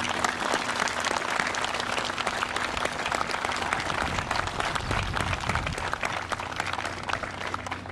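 Audience applauding: many hands clapping steadily, dying away at the end.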